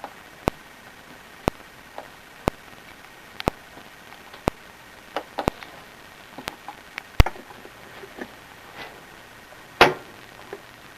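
Sharp ticks at an even pace of about one a second, with irregular lighter clicks and knocks between them and one longer, louder clatter near the end.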